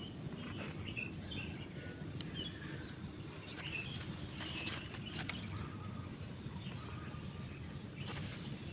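Faint, scattered short high chirps of small birds over a steady low background rumble.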